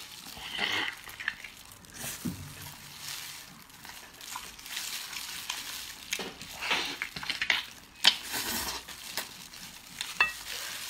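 Close-up eating sounds of someone biting, chewing and sucking on braised pig's trotters: irregular wet smacking and slurping, with one sharp click about eight seconds in.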